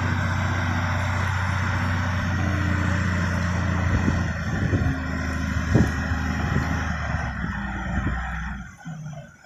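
Diesel engine of a Cat 980 wheel loader running steadily under work, with a few knocks and clunks about four to six seconds in; the engine sound drops away sharply near the end.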